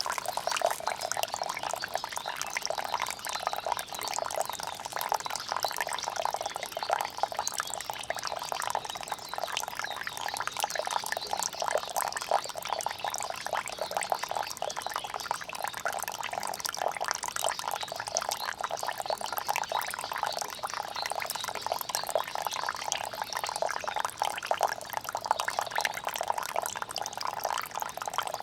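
Rainwater pouring and splashing steadily, a dense stream of small splashes and drips.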